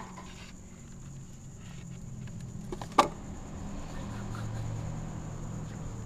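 A single sharp knock against the plastic enclosure about three seconds in, over a low steady hum.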